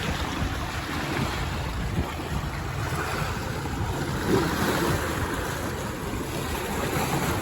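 Steady rushing noise with irregular low rumbles, like wind buffeting the microphone.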